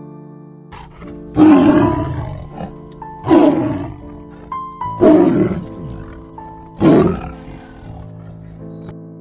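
Tiger roaring four times, about two seconds apart, each roar loud and falling in pitch, over soft piano music.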